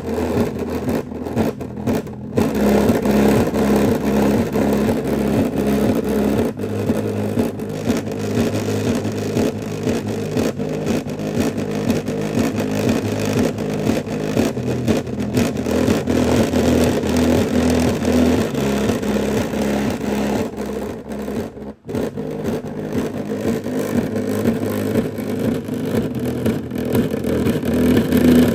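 A small 3-inch home-theater speaker driver playing low, pulsing bass at a steady beat, two or three pulses a second, making a Kinyo SW-6106 subwoofer cabinet rattle and buzz along with it. The sound breaks off briefly about three-quarters of the way through.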